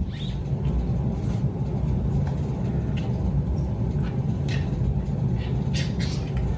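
Steady low background rumble with a few faint, light clicks.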